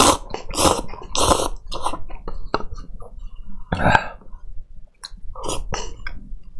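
A person slurping instant cup noodles in short, noisy sucks: a quick run of about five in the first couple of seconds, another about four seconds in, and a few more near the end.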